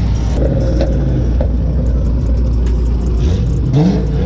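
Car engine idling with a deep, steady rumble, then a short rev rising in pitch about three and a half seconds in.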